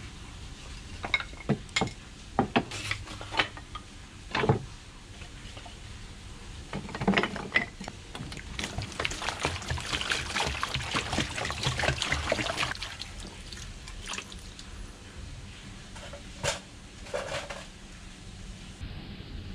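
Short cut pieces of wood clacking against each other and a plastic tub as they are dropped in, a string of sharp knocks over the first few seconds. Then water poured from a plastic jug splashes onto the wood in the tub for about five seconds, with a couple more knocks near the end.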